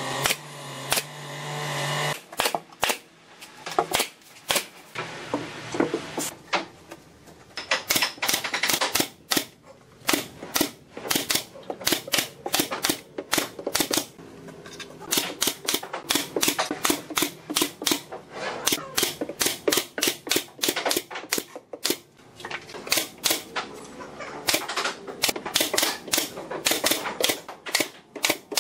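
Pneumatic nail guns firing nails into wooden formwork boards: many sharp clacks, singly and in quick runs.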